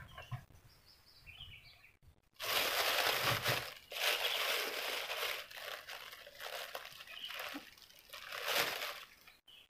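Close rustling and crinkling in uneven bursts, starting about two seconds in and stopping just before the end.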